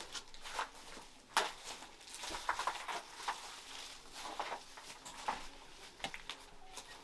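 Irregular footsteps crunching and crackling on debris, a scatter of short clicks with a sharper one about a second and a half in.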